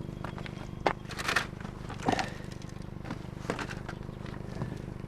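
Items being handled while rummaging through a trash pile: a few sharp knocks and short crackly rustles over a steady low hum.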